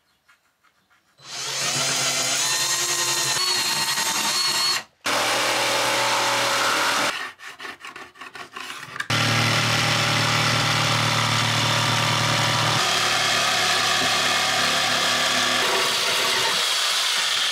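Electric jigsaw running and cutting through a wooden panel, in long steady stretches broken by a couple of short stops.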